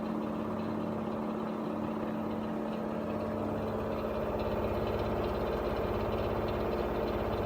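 LG washing machine running with a steady hum and a fast metallic rattle that grows stronger about halfway through, which the owner suspects comes from the motor rather than the suspension.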